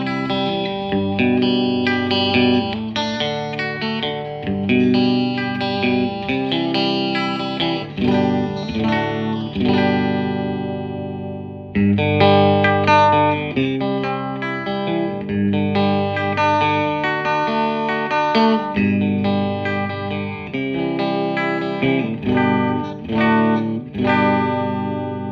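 Electric guitar, a Fender Stratocaster on its bridge-and-middle pickup position, playing chords and riffs through an amplifier. About ten seconds in, a chord is left to ring and fade before the playing starts again.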